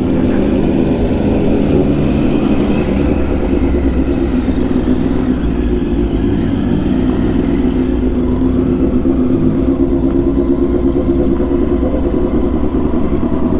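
Motorcycle engine running at a steady, nearly constant speed while riding, over a steady low rumble.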